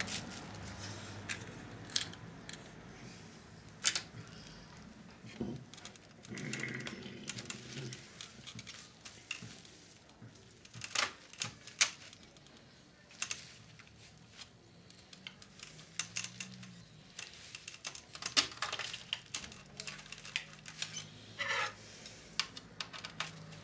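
Scattered small clicks and taps of screws and plastic parts being handled and fitted into the plastic chassis of a Philips D6350 cassette recorder during reassembly, with a screwdriver in use near the end.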